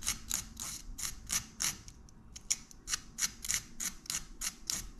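Sandpaper rubbed back and forth over the broken end of a fishing rod blank, smoothing the splintered break. The short scratchy strokes come about three to four a second, with a brief pause about two seconds in.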